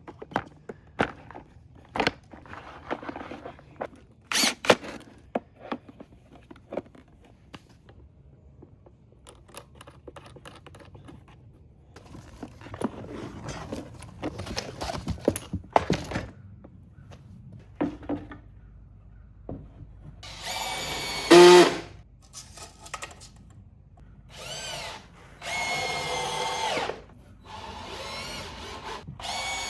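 Scattered clicks and knocks of parts being handled, then a power drill running in several short bursts of one to two seconds each in the last third.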